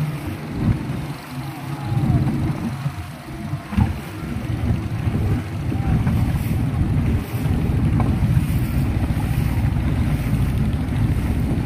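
A boat motor runs steadily under wind buffeting the microphone, with faint distant shouting over the water.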